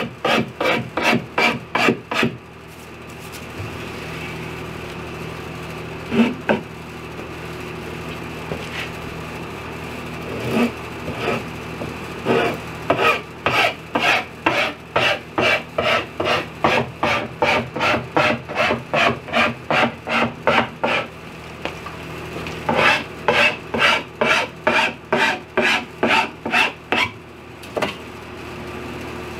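A metal file drawn quickly back and forth along a panel edge, trimming off the excess iron-on edge banding: runs of rasping strokes, about three a second, broken by pauses, over a steady low hum.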